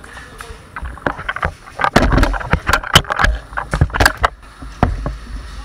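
Irregular sharp clicks and knocks, several a second, over a rumbling handling noise on the microphone of a camera carried by a moving airsoft player.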